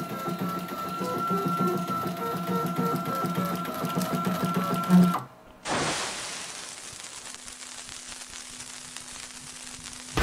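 A CNC-converted Singer 15 sewing machine stitching, its stepper motors giving a steady high whine over the rhythmic clatter of the needle mechanism. It stops abruptly about five seconds in. After a brief gap comes an even hiss that slowly fades.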